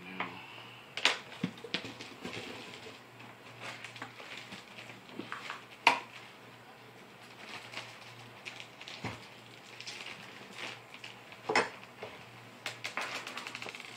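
Small objects handled and set down on a wooden tabletop: scattered sharp clicks and knocks from brass shotgun shells and a small digital scale, with light rustling and a quick run of ticks near the end.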